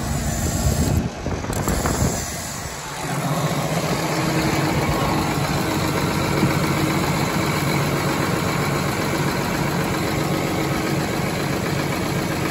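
Steady idling engine hum while a tractor is refuelled from a farm tank's electric transfer pump and nozzle. The sound dips briefly about a second in and settles back to a steady hum from about three seconds on.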